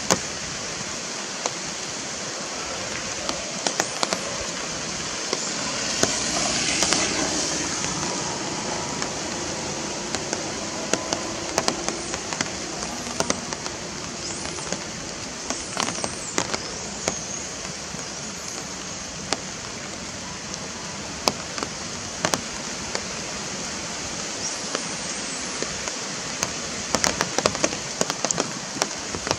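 Steady outdoor hiss of natural ambience that swells briefly about six seconds in, with scattered short sharp clicks and snaps throughout.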